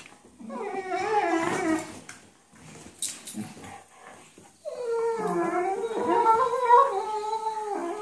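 Weimaraners vocalizing while play-fighting: long, wavering, pitched whining sounds, one for about a second and a half near the start and a longer one from about halfway through, with a quieter gap between.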